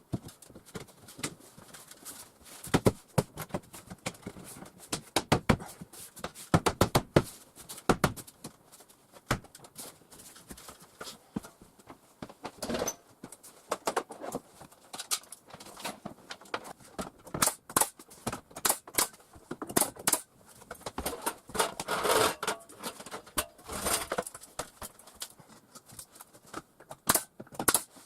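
Irregular clicks, taps and knocks of hand work with tools and materials, with a few louder knocks that ring briefly.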